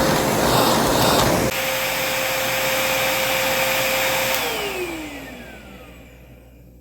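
Vacuum cleaner running with a steady whine over a rough rushing noise. The rushing drops away about a second and a half in. Past four seconds the motor is switched off, its whine falling in pitch and fading as it spins down.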